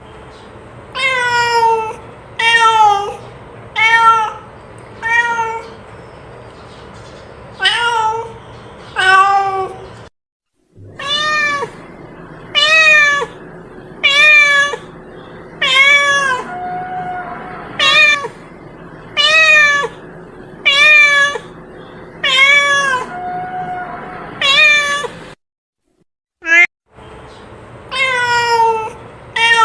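A cat meowing over and over in short, high calls that rise and fall in pitch, roughly one to two seconds apart. The sound cuts to silence twice, briefly.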